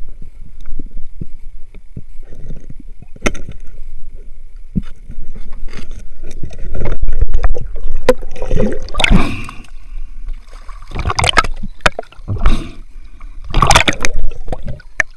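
Water sloshing, splashing and bubbling heard from a camera held underwater during night spearfishing, with knocks on the camera. It starts with scattered knocks and grows into loud bursts of splashing in the second half, as the water near the surface churns.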